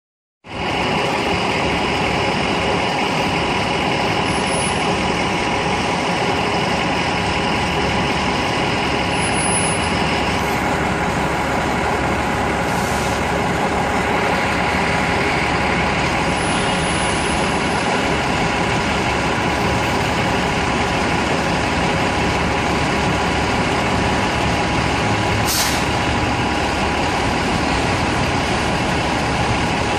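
A 2012 Nova Bus LFS articulated city bus idling at the curb, a steady engine and fan drone. A high hum drops out about ten seconds in, and a short high hiss comes near the end.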